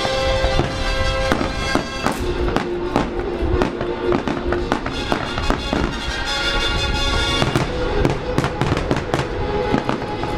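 Fireworks bursting in quick succession, many sharp bangs that come thickest near the end, over music with long held notes.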